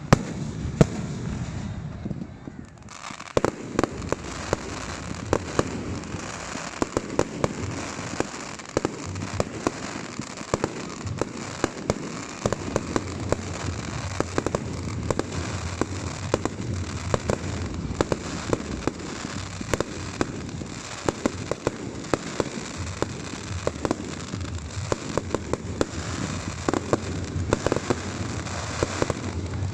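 Aerial fireworks going off in a dense, continuous barrage of bangs and crackling pops. Two loud bangs come in the first second, and after a short lull the crackling thickens from about three seconds in.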